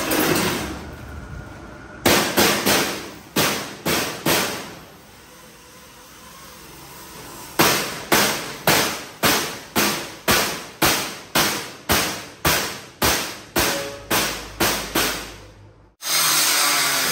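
Hammer blows on metal: a short run of strikes, a pause, then a long even run of about two to three blows a second. Near the end a steady noise starts suddenly.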